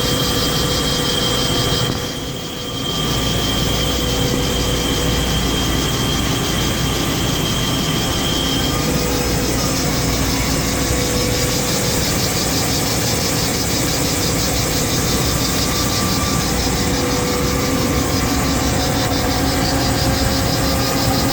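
1988 Mori Seiki SL4 CNC lathe running steadily, cutting a part. A thin high whine sounds over the machine noise for the first nine seconds or so, and the sound dips briefly about two seconds in.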